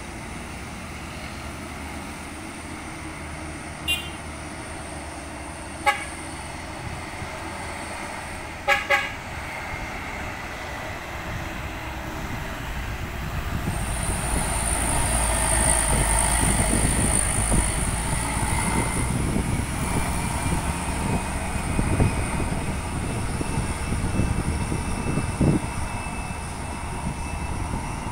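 Short vehicle horn toots at about 4 and 6 seconds, then a quick double toot near 9 seconds. A light diesel dump truck then comes into earshot, its engine growing loud as it passes close around the hairpin, with a steady high whine in the middle of the pass.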